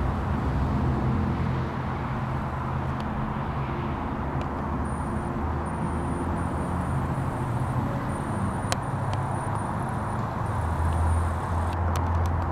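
Steady low rumble of outdoor background noise, with a faint, broken high whine through the middle and a few light clicks.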